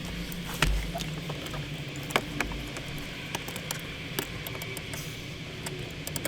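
Scattered light clicks and knocks of a hand tool and hands working at the stereo mounting bolts inside a car's dashboard, the sharpest about half a second and two seconds in, over a steady low hum.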